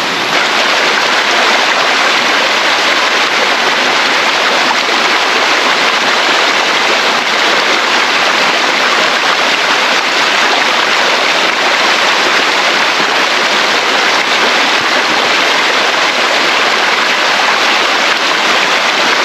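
River water rushing and splashing over rocks and sand in a shallow stream, a loud, steady rushing noise.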